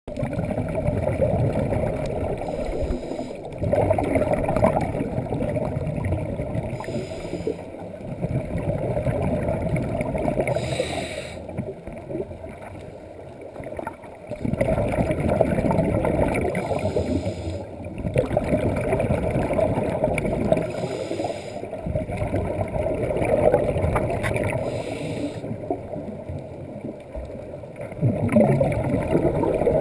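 Scuba diver breathing through a regulator underwater: a few seconds of bubbling exhalation at a time, alternating with a short hiss of inhalation, about one breath every four seconds.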